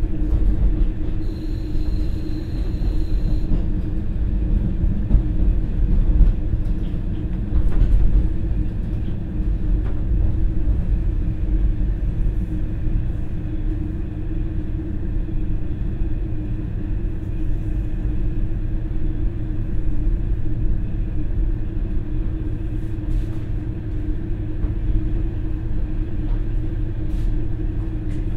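KiHa 40 diesel railcar running, heard from inside the passenger cabin: a steady low rumble and drone from its non-direct-injection DMF15HSA diesel engine and running gear. A brief high tone sounds about a second in.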